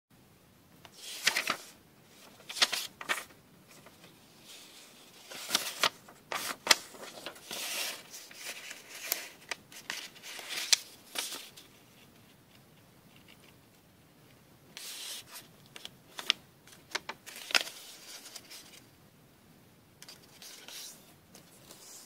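Square of origami paper being folded and creased by hand: irregular rustling and crinkling with sharp crackles as creases are pressed, and a quieter pause about two-thirds of the way through.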